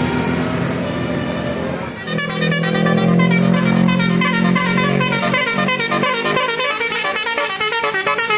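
Bus telolet horn playing a fast melody of many short, quickly changing notes, starting about two seconds in over a low held horn tone that drops out a few seconds later. Before the melody there is a steady noisy vehicle sound.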